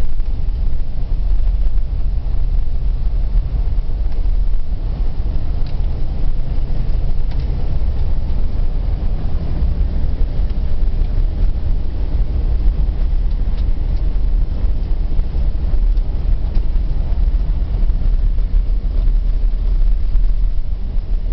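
Steady low rumble of a motor vehicle driving, engine and road noise heard from inside the cab.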